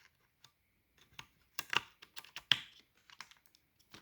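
Scattered small clicks and taps of a laptop RAM module being handled and lined up with the laptop's memory slot.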